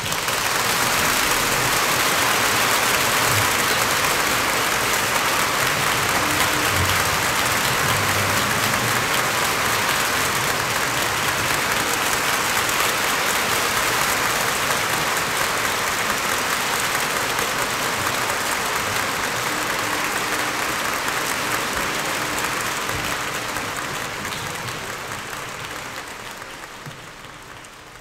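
Audience applause, steady clapping from a large hall audience, fading out over the last few seconds.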